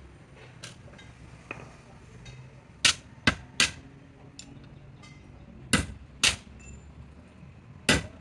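Hammer striking metal: a run of three sharp blows, then two more, then a last one near the end, with lighter clicks between.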